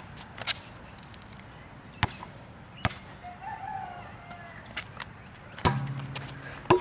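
A basketball is bounced on a concrete pad, giving sharp separate bounces about a second apart. Near the end comes a louder bang with a brief low ring. A rooster crows briefly about halfway.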